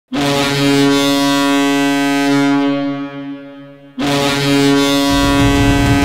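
Toronto Marlies hockey goal horn blowing: a deep, steady horn blast of about two seconds that fades away, then a second blast about four seconds in. The goal song, heavy rock with guitar and drums, kicks in under the horn about five seconds in.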